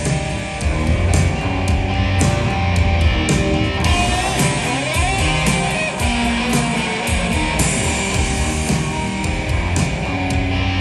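A rock band playing live: distorted electric guitars over a steady drum beat with cymbal hits.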